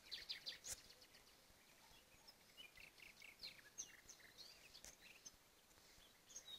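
Faint chirping: many short, high-pitched animal calls scattered irregularly and overlapping, with a couple of faint clicks.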